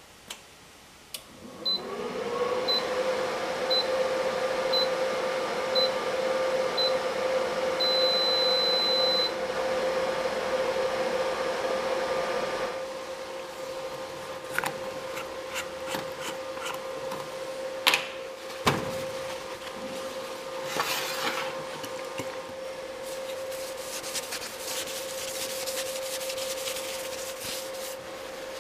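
Inverter TIG welder switched on: its cooling fan spins up to a steady hum, and it gives six short beeps about a second apart and then one longer beep. Later come a short hiss and a run of light clicks and rattles.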